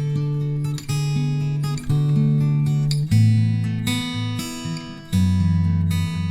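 Background music: an acoustic guitar strumming chords that change about once a second.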